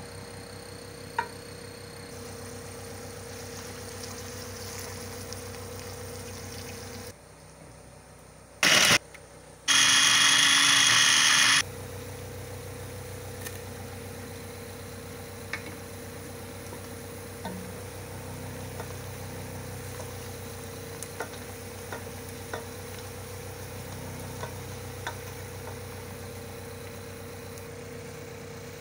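Chopped onions sizzling in hot oil in a steel pan over a steady low hum, with scattered light taps of a wooden spatula. About ten seconds in, a loud hiss lasts about two seconds, then the frying and hum carry on.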